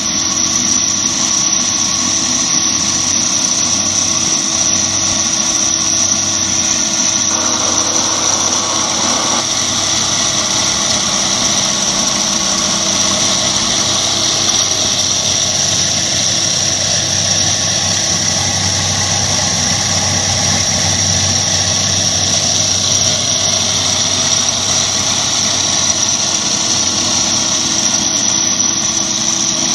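Schwamborn BEF 320 EX concrete milling machine (scarifier) running steadily, its electric motor driving the cutter across a concrete surface, with a constant high whine over the grinding noise.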